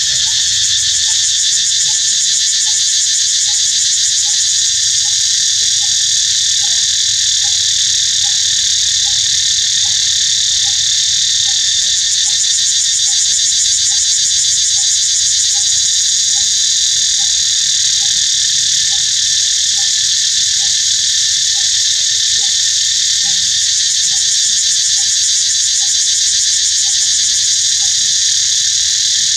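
Loud, steady high-pitched shrilling of an insect chorus, with a short low note repeating evenly about one and a half times a second.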